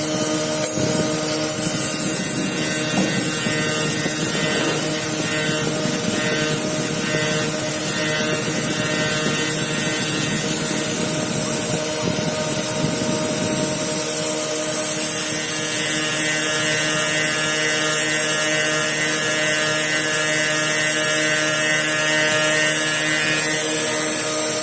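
CNC ring drilling machine running with a steady multi-tone machine hum. For the first half a rough, grainy cutting noise rides on top; about fourteen seconds in it settles into a smoother, steadier whine.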